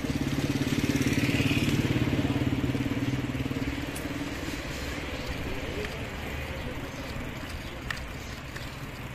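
A passing motor vehicle's engine: a steady pulsing engine note, loudest in the first two seconds, that fades away by about four seconds in, leaving a low background hum.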